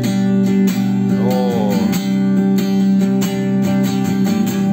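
Electric guitar (Ibanez RG1550) strummed in chords through a Boss GT-1000 multi-effects processor on an acoustic-style patch, in a steady rhythm of repeated strokes.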